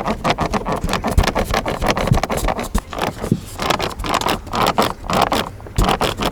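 Car dashboard panel creaking and rattling, a dense run of irregular squeaks and clicks from the cabin as the car drives over uneven road: the loose dash panel rubbing where its factory foam seal has worn.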